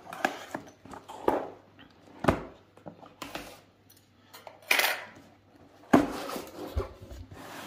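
A parcel being unpacked by hand: irregular knocks, clicks and scrapes of cardboard and packaging, with a couple of short rustles about five and six seconds in.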